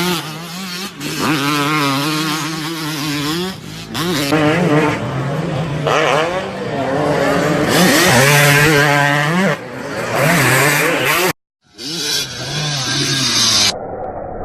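Two-stroke motocross bike engines revving hard, the pitch repeatedly climbing and dropping as the riders accelerate and shift gears. The sound cuts out briefly about eleven seconds in, then another bike's engine comes in.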